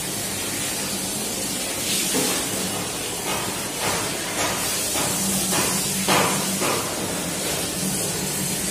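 Eating sounds: fingers mixing rice on a steel platter, and chewing, heard as scattered short clicks and smacks over a steady hiss and low hum.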